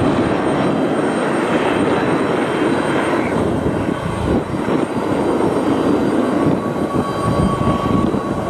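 Airbus A320neo jet airliner's engines roaring on departure, a deep, steady sound. A steady whine near 1 kHz joins in about two-thirds of the way through.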